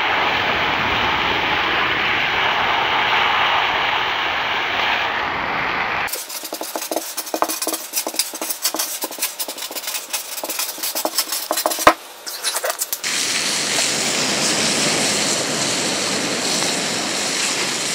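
A frying pan of hot dogs over an open wood fire, sizzling hard as the pan flares up in flames. About six seconds in it cuts to a felt-tip marker scratching across paper in short strokes. About thirteen seconds in it cuts back to the pan sizzling steadily on the embers.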